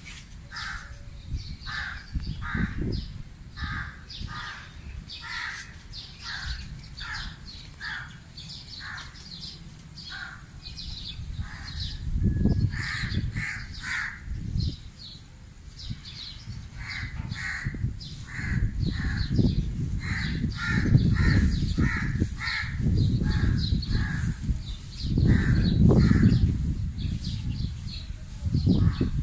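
Crows cawing over and over, about one or two short caws a second. Gusts of wind rumble on the microphone, growing stronger in the second half.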